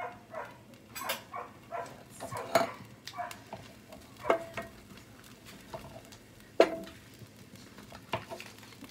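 Utensil knocking and scraping in a skillet as butter melts: a run of irregular clinks and knocks, several ringing briefly, the loudest about two-thirds of the way through.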